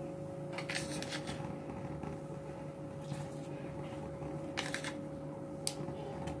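A steady low hum of kitchen background noise, with four or five brief rustling bursts spread through.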